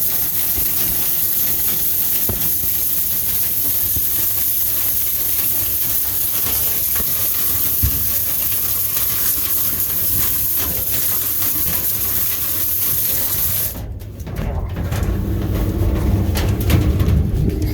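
Steady, loud rush of air with a strong hiss, typical of dryer vent cleaning equipment blowing or drawing air through the duct. It cuts off suddenly about fourteen seconds in, leaving a low rumble and rubbing noises.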